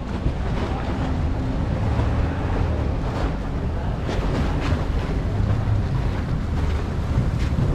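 Wind buffeting the microphone over water splashing and a speedboat's outboard motors running, a steady low rumble.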